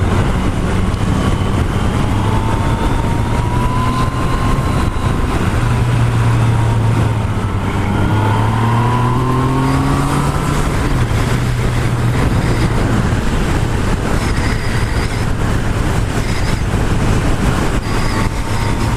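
Yamaha MT-09's three-cylinder engine running on the road under heavy wind noise. Its note climbs for a few seconds around the middle as the revs rise, then holds steady again.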